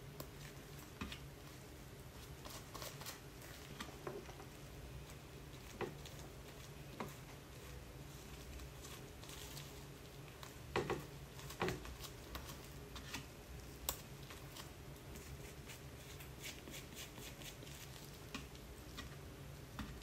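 Hair dye being worked by gloved hands: soft squishing and plastic-glove crinkling as dye is squeezed into a bowl and brushed through the hair, with scattered light taps and clicks, a few sharper ones around the middle. A faint steady hum runs underneath.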